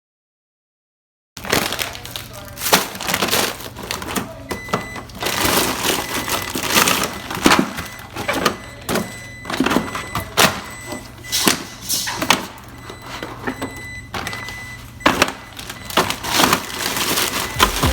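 Irregular clatter: sharp knocks and clicks of items being handled and set down, over a steady low hum.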